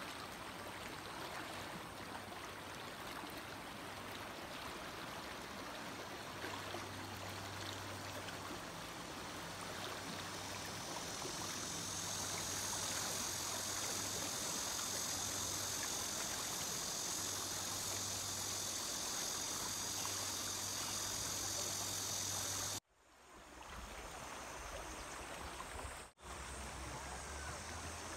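Water rushing steadily through a shallow river riffle, a constant hiss that grows somewhat louder about halfway through. Near the end it cuts out abruptly and then returns.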